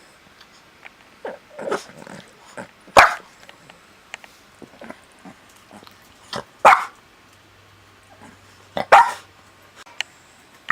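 Boston terrier barking: three loud, sharp single barks a few seconds apart, with softer short sounds in between.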